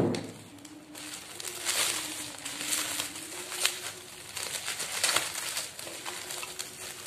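Plastic bubble wrap crinkling and rustling as it is handled and pulled off a small item, with a series of sharp crackles.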